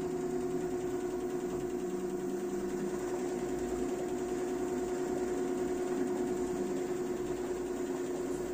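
LG F4DV509S0E washer-dryer spinning its empty drum on a high-speed spin cycle: a steady machine hum with a steady high-pitched whine over it.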